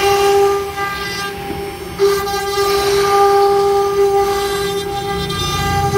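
CNC router spindle whining at a steady high pitch while its carving bit cuts into an MDF panel, with the rushing cutting noise swelling sharply about two seconds in.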